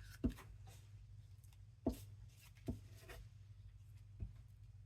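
Paper pieces being handled on a craft table: soft rustling with about five light taps as paper and tools are set down, over a faint steady low hum.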